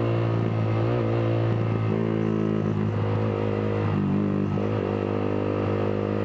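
Yamaha R15 V3's single-cylinder engine, through an aftermarket Villan exhaust, running at a fairly even pitch while the bike is ridden.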